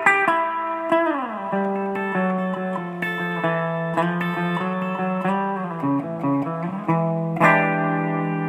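Guitar music: plucked guitar notes with sliding pitch bends, then a chord struck near the end that rings on.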